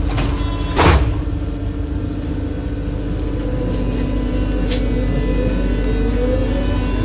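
Berlin U-Bahn H-type (H01) train's doors shutting with one sharp bang about a second in, over a steady electrical hum. From about three and a half seconds in the train starts off, its traction motors giving a whine that rises steadily in pitch as it gathers speed.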